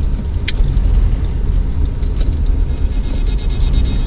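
A car in motion: steady low road-and-engine rumble, with one brief high click about half a second in.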